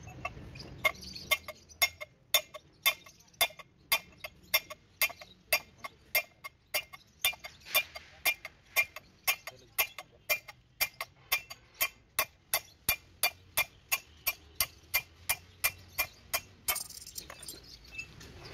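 Hammer blows on a steel drift set against the tapered roller bearing on a ZF bus gearbox mainshaft, a steady series of ringing metallic strikes at about two a second that stops near the end.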